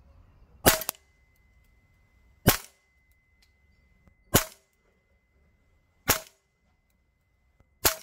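Double Eagle Noveske N4 MWS gas blowback airsoft rifle firing single shots on green gas from a T8 CGS magazine: five sharp shots a little under two seconds apart.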